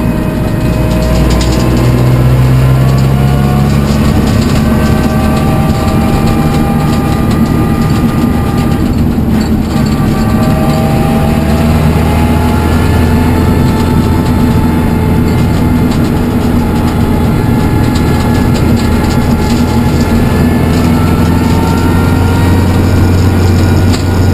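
Peugeot 207 R3T rally car's turbocharged 1.6-litre engine heard from inside the cockpit at full race pace, its note climbing under acceleration and dropping back again and again as the gears change, over steady road and wind noise.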